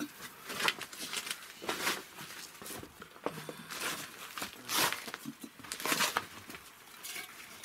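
Irregular rustling and crinkling as cat food is handled and dished into bowls, with a few louder rustles.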